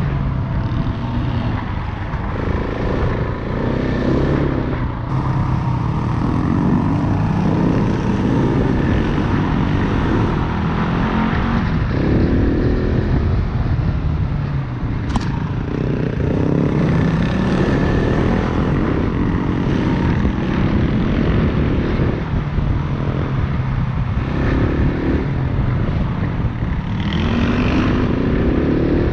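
Single-cylinder four-stroke dirt bike engine under way off-road, its pitch rising and falling repeatedly as the throttle opens and closes through the gears, over a constant rush of wind and riding noise.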